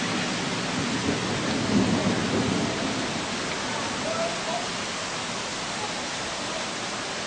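Storm wind: a steady rushing hiss with no distinct strokes, easing slightly over the seconds.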